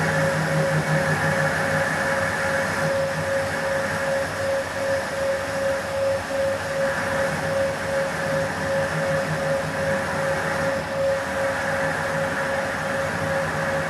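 Centre lathe running under a facing cut, its single-point tool scraping across the end face of a round metal bar. A steady motor and gearbox hum with a steady whine that pulses slightly, and the hiss of the cut.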